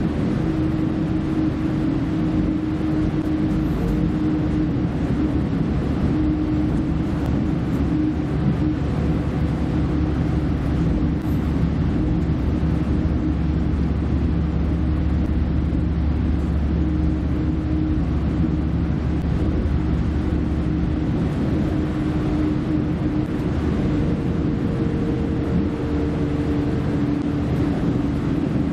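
Cabin noise inside a V/Line Vlocity diesel multiple unit under way: a steady low rumble and drone from the underfloor diesel engine and the running gear. A deeper low hum swells about a third of the way in and drops away about two thirds through.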